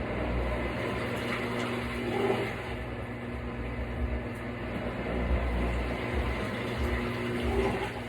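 Water sloshing in a portable twin tub washing machine, over a steady low motor hum.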